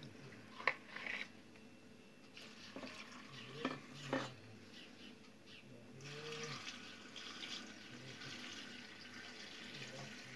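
Salt brine being poured into a large glass jar of peppers for pickling: a faint trickle and splash of water, with a few light knocks in the first seconds. The pouring gets a little louder about six seconds in.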